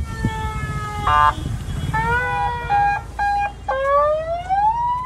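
Portable electronic car siren sounding, cycling through its tone patterns: a slow falling wail, a short fast warble about a second in, broken steady tones, then a long rising wail near the end.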